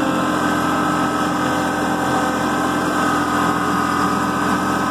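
Kubota B2650 compact tractor's three-cylinder diesel engine running steadily at an even pitch while driving in low range with a heavy load of logs in the front-loader bucket.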